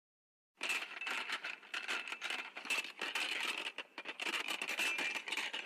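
Dense crackling, crinkling noise made of many small clicks, starting about half a second in and running on steadily.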